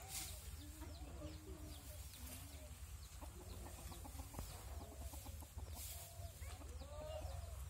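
Aseel chickens clucking, a string of short, low calls one after another.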